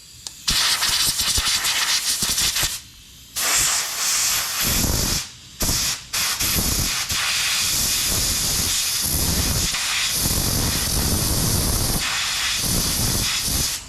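A pressurized spray hissing onto the chainsaw in three bursts, the last about eight seconds long, with a low rushing rumble under it from about a third of the way in.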